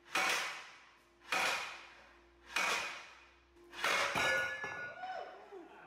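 Four hammer blows on a steel sleeve fitted over a steel beam, about one every second and a quarter, each ringing metallically, the last ringing longest: the welded sleeve is stuck on the beam and is being driven off.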